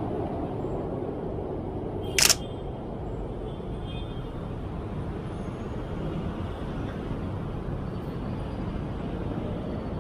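A single mirrorless camera shutter click about two seconds in, over a steady low hum of street traffic.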